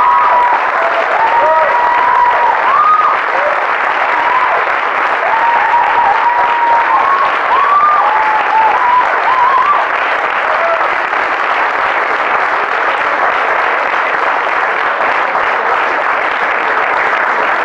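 Audience applauding steadily after a stage performance, with short sliding tones heard over the clapping until about ten seconds in.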